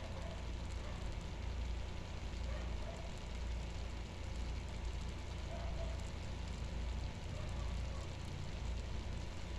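Stove burner running under a wok of frying rice noodles: a steady low rumble with a faint hiss.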